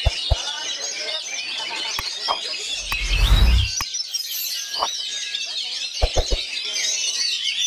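Oriental magpie-robin (kacer) singing nonstop in fast, varied whistled phrases. A low rumble about three seconds in and a few sharp clicks, several of them together near the six-second mark, cut across the song.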